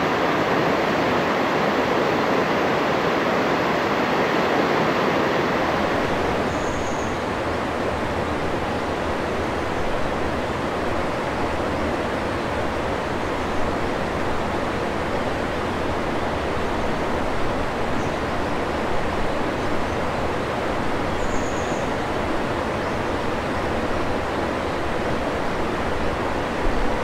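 Steady rush of river water running through shallow rapids over rocks, growing deeper about six seconds in.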